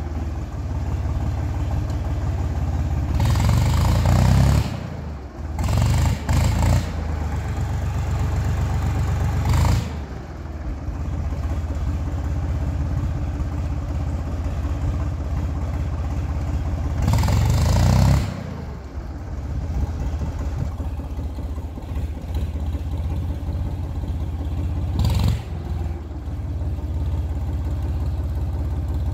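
Tractor engine running steadily and revved up in several bursts, the longest about three and seventeen seconds in, as the driver tries to get it moving before it has warmed up enough to go.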